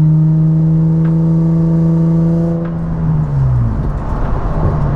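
Nissan 350Z's 3.5-litre V6 engine running steadily while driving. Its revs fall about three seconds in, a rougher, noisier stretch follows, and the engine note then settles again.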